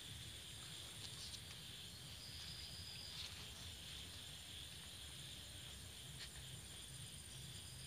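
Faint, steady high chirring of night insects, with a few faint clicks.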